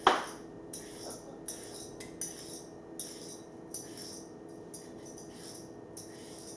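Kitchen utensils and dishes: a sharp knock at the start, then light clinks and scrapes of metal cutlery against dishes about once a second, over a steady low appliance hum.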